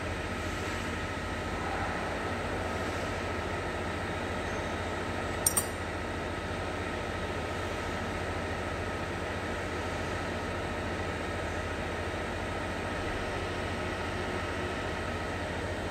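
Steady background hum and hiss with a thin steady whine. About five and a half seconds in, a quick double metallic click as the brass ball-valve parts are handled.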